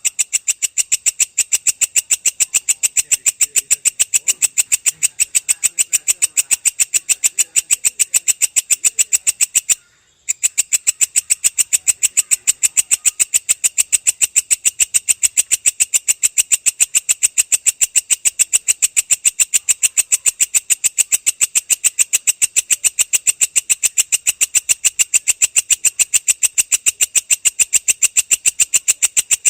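Belalang kecek (a katydid) calling: a long, steady train of rapid, evenly spaced high-pitched pulses, broken by a short gap about ten seconds in.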